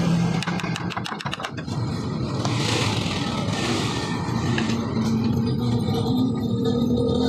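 Steady background din like road traffic, with a quick run of light clicks and knocks about a second in.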